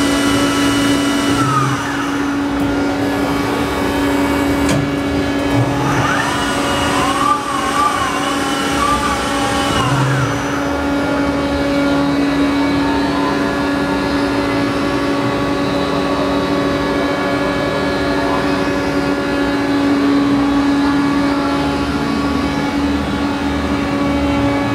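Okuma LB15 CNC turning center running under power: a steady machine hum with a constant tone. For a few seconds partway through, a warbling whine rises over it.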